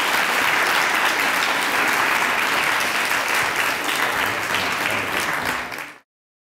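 Audience applauding steadily, fading and then cutting off about six seconds in.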